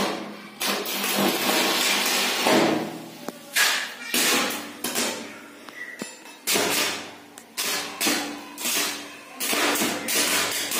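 Welding arc from a rod fed through a salt-water current limiter, crackling and sputtering in a string of short bursts that each start sharply and fade, about one every half second to second.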